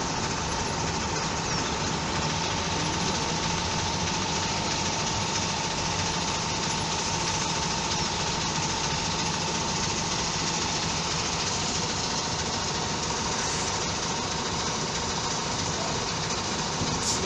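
City bus diesel engine idling steadily close by, with a constant whine over the engine noise.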